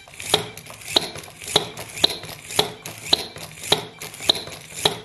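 A motor-driven toy squeaky hammer on a small antweight combat robot's arm, hammering the tabletop over and over at about two hits a second, each hit with a short high squeak.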